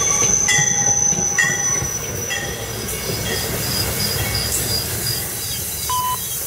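MARC bilevel passenger coaches rolling past close by: a steady low rumble of wheels on rail, with thin high-pitched wheel squeals that come and go over it.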